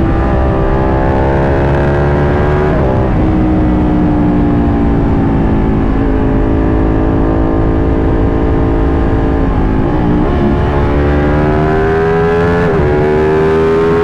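Ducati 1199 Panigale's L-twin engine through a Vandemon titanium undertail exhaust, under way at highway speed. The pitch climbs, drops sharply about three seconds in as it shifts up, eases off for several seconds, then climbs again through the last few seconds with another brief break near the end.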